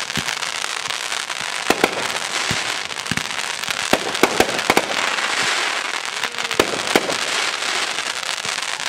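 Consumer 1.4G aerial fireworks going off: a dozen or so sharp reports at uneven intervals, with a continuous hiss between them.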